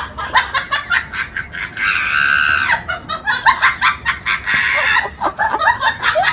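Animal squawks and cries in quick succession, with one longer held call about two seconds in.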